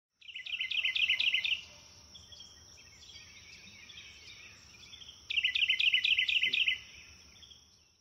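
A songbird singing two loud phrases of rapid repeated chirping notes, each about a second and a half long, one near the start and one past the middle, with fainter bird calls between them. A thin steady high tone runs underneath until just before the end.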